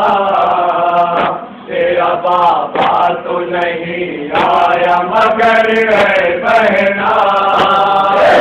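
A male lead voice chants a nauha, the Shia lament sung through a microphone, with other men's voices joining. Short sharp slaps come in time with it, typical of matam chest-beating.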